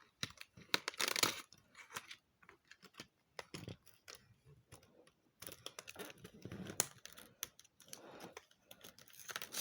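Cardboard advent-calendar door being torn open and its packaging handled: irregular tearing and crinkling with small clicks, as a pair of earrings is taken out.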